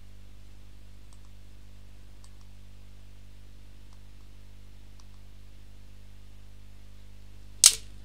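A few faint computer mouse clicks over a steady low electrical hum, then one loud, sharp snap near the end.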